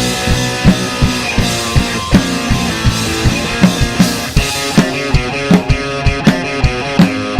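Rock music with a steady, fast drum-kit beat and guitars.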